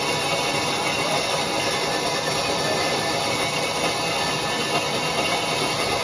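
Large sawmill band saw running steadily, with an even, unchanging mechanical noise carrying many steady high tones.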